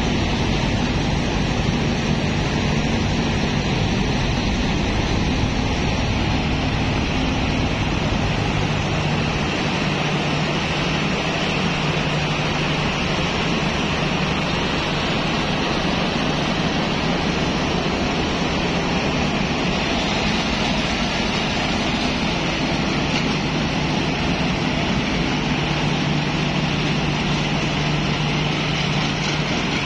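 Diesel locomotive engines running steadily beside the track: a constant mechanical drone with a low hum over a rushing noise. The deepest rumble thins out about nine seconds in.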